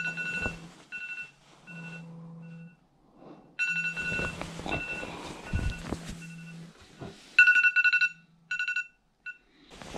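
Electronic alarm beeping in short repeated bursts of a steady two-pitch tone, with a low buzz under many of the bursts and a quick run of beeps near the end. Rustling handling noise runs under the beeps through the middle.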